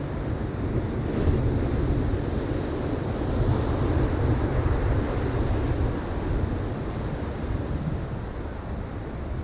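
Ocean surf breaking and washing up a sandy beach, a steady roar of noise that swells about a second in and eases after about six seconds. Wind on the microphone adds a low rumble.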